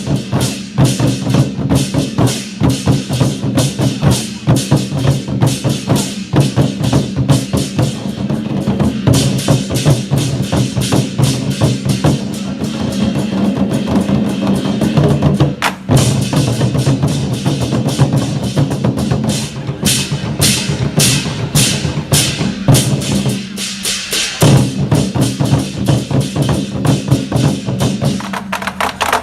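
Chinese war drums beaten by a troupe in fast, continuous rolls and strokes, with sharp stick clicks over the deep drum tone. The playing breaks off for a moment late on and then comes back in.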